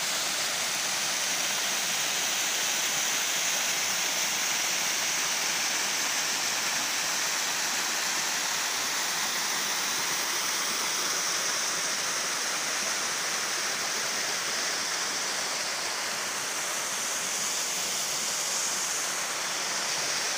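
Waterfall spilling into a rock pool: a steady, even rush of falling and splashing water.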